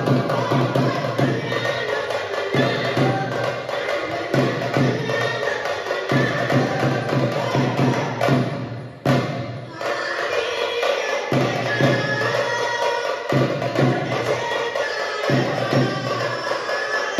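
Music with percussion and a steady beat. It drops out briefly about nine seconds in, then carries on.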